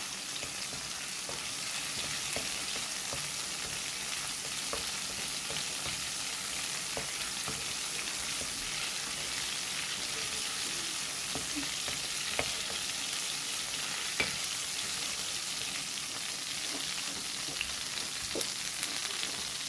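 Blended ginger-garlic paste sizzling steadily in hot oil in a karahi, with a few light clicks of stirring against the pan.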